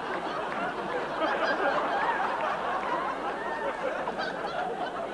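Audience laughing.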